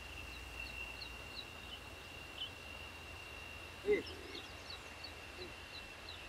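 Forest ambience: a steady high-pitched insect drone, with short high chirps scattered through it and one brief, louder, lower call about four seconds in.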